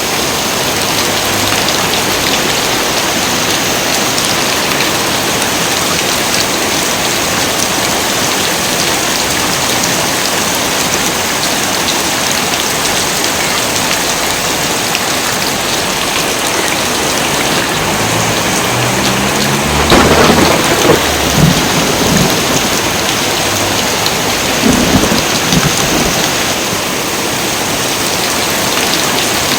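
Heavy rain falling steadily, with thunder rumbling in about eighteen seconds in and peaking in a loud clap about twenty seconds in, then a second, shorter peal about twenty-five seconds in.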